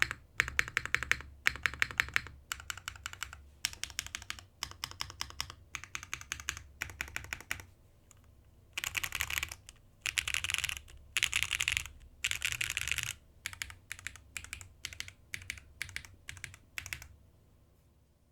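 Merisi Sessantacinque mechanical keyboard with a carbon fibre plate, lubed Zaku switches and GMK keycaps being typed on: clusters of fast, clacky keystrokes, a few louder dense flurries in the middle, then separate strokes that thin out and stop near the end.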